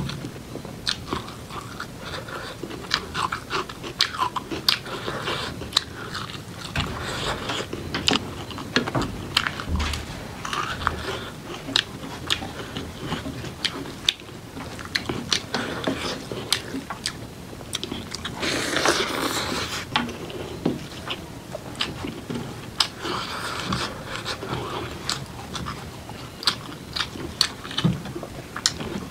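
Close-miked eating sounds: wet chewing and lip smacks with many sharp clicks and crunchy bites. About two-thirds of the way through there is a louder rushing, slurp-like noise lasting a second or so.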